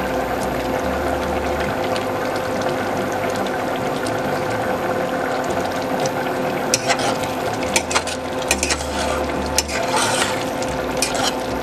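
Thick chana dal simmering and bubbling in an open aluminium pressure cooker on an induction cooktop, over the cooktop's steady hum. From about seven seconds in, a spatula stirs the dal, scraping and knocking against the pot several times.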